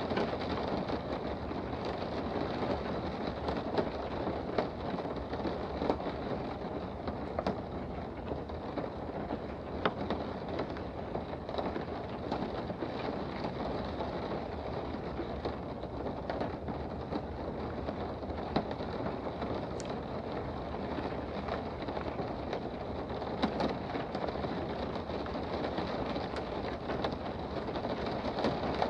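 Steady rain heard from indoors, an even rushing hiss with scattered sharper drops ticking through it.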